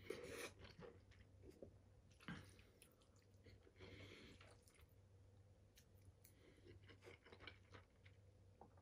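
Faint chewing of a mouthful of sauced egg noodles, with a few brief soft noises as a fork works through the pasta in a metal bowl, over a low steady hum.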